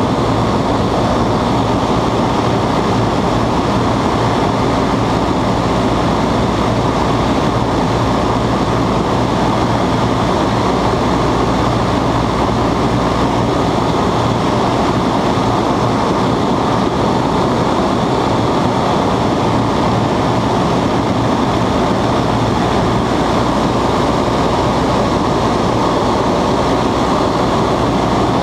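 Westland Lysander's radial engine and propeller running steadily in flight, heard from inside the cockpit as a loud, even drone mixed with rushing air.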